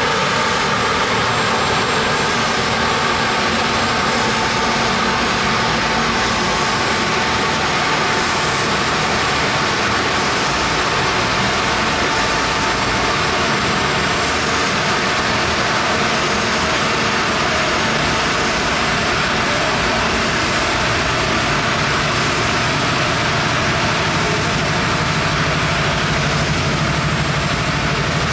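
C.R. Onsrud 145G18 CNC router running as it machines 2 mm acrylic sheet: a loud, steady machine noise, with a low hum joining about three-quarters of the way through.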